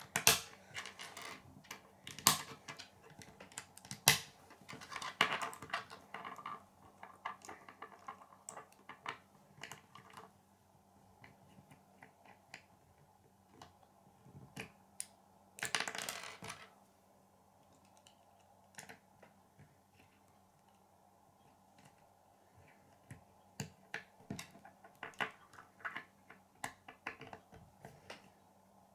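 K'nex plastic rods and connectors clicking and snapping together, with pieces knocking on a wooden tabletop. The sharp clicks come in clusters, with a short rustle about halfway through and a quieter stretch before more clicks near the end.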